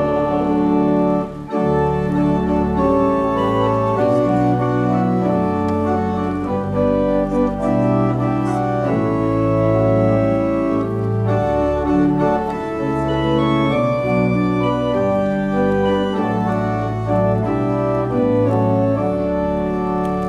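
Organ playing a hymn in slow, held chords.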